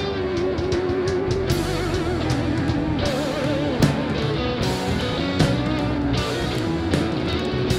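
Live rock band playing an instrumental passage: electric guitars and drums, with a wavering lead melody line.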